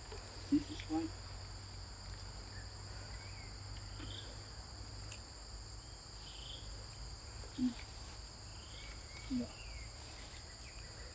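Steady high-pitched insect drone from forest insects, two constant tones held throughout, with faint scattered bird chirps. A few brief soft low sounds stand out, the loudest about two thirds of the way in.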